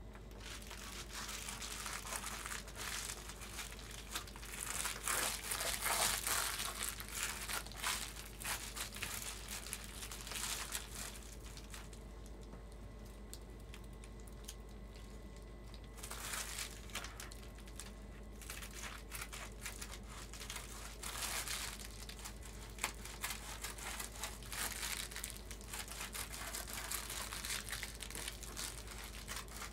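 Sheet of Reflectix foil-faced bubble insulation crinkling and crackling as it is handled, flexed and pressed into an RV window frame. It comes in bursts, with a quieter pause partway through.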